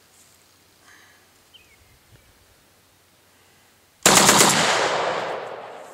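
Full-auto Saiga 12-gauge shotgun firing a short, rapid burst of several shots about four seconds in. The report echoes and fades away over the next two seconds.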